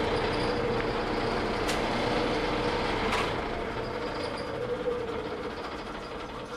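Metal lathe running with a steady hum while a wire brush is held against the freshly cut thread on the spinning workpiece to deburr it, with a couple of sharp clicks. From about halfway the sound slowly dies away as the lathe runs down.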